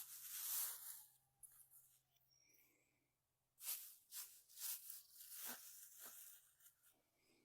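Digging potatoes out of loose raised-bed soil: irregular scraping and crunching rustles of soil being turned, the loudest in the first second and another run of them about halfway through.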